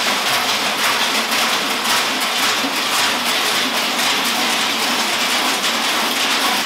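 Many large bells worn by a crowd of fur-costumed Klaubauf figures clanging together in a dense, continuous jangle as they move about.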